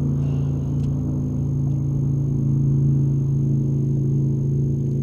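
A boat's outboard motor running steadily at low speed, with an unchanging pitch.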